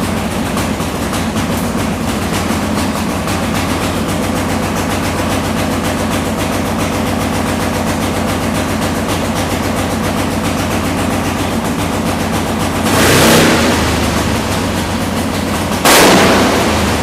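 A 2,200 cc drag racing motorcycle engine running at a loud, steady idle. It is revved up briefly twice: a swelling blip about three quarters of the way through and a sharper, sudden blip near the end.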